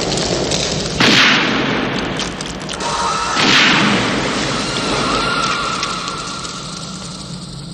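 Two gunshots about two and a half seconds apart over a film soundtrack; a held high note comes in around the second shot and lingers as the sound fades.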